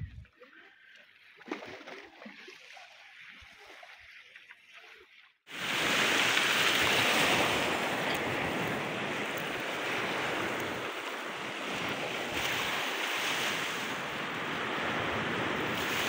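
Sea waves washing on the beach: faint water sounds at first, then a loud, steady rush of surf that starts suddenly about five seconds in.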